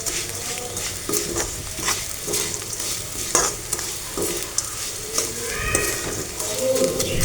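A spoon stirring and scraping a pan of garlic and crushed edible gum frying in ghee, with a steady sizzle and irregular scrapes, including a few squeaky ones in the second half.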